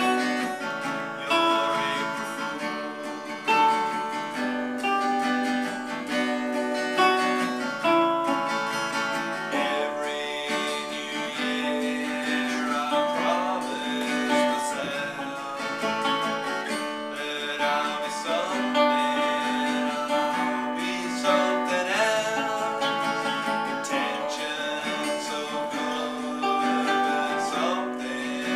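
A man playing an acoustic guitar with a capo, and singing. The guitar plays alone at first; his voice comes in about ten seconds in.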